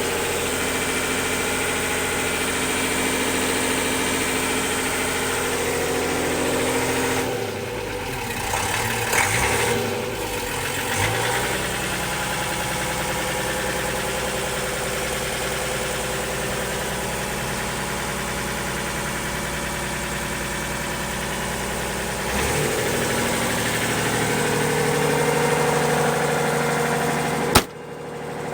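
Unimog FLU419's diesel engine running at idle, its note shifting twice as the engine speed changes. Near the end a sharp click comes and the sound drops off.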